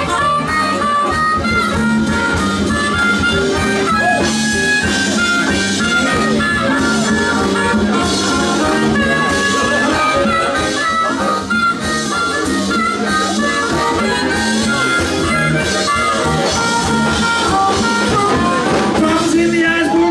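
Live band playing an instrumental passage: a melody line of held and stepping notes over a walking bass and drum and cymbal hits.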